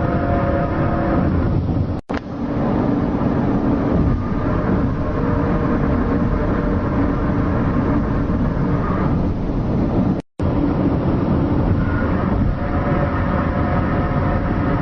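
Loud, steady rumbling drone with several held tones wavering over it, one of the so-called strange sounds heard in the sky. It drops out briefly twice, about two seconds in and again about ten seconds in.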